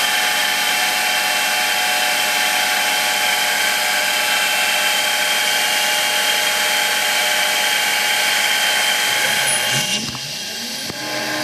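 Dremel rotary tool on a CNC mill spinning a small cutter through a wood block: a loud steady high whine with cutting noise. Near the end the cutting noise drops away and the mill's stepper motors sound, their tones rising and falling as the axes move.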